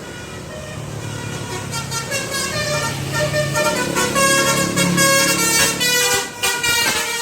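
A bus's multi-tone 'telolet' air horn playing a quick melody of changing notes, over the low rumble of the bus engine. It grows louder over the first few seconds as the bus draws near.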